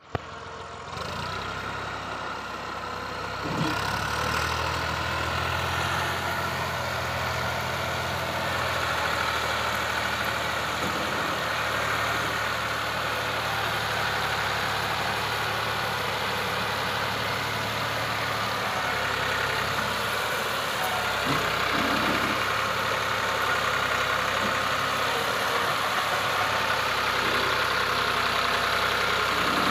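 Massey Ferguson tractor's diesel engine running steadily under load as it hauls a trolley heavily loaded with sugarcane, growing louder about four seconds in.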